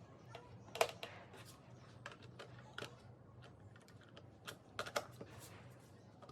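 Irregular light clicks and taps, a dozen or so in a few seconds, with the sharpest about a second in and a cluster near five seconds, over a faint steady hum.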